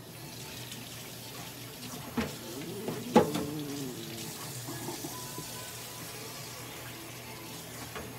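Steady rushing hiss of running water. A sharp knock comes about three seconds in, with a short wavering sound around it.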